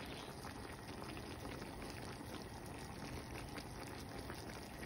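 Pot of vegetables and shrimp in coconut milk simmering on the stove: a steady, faint bubbling with fine crackles.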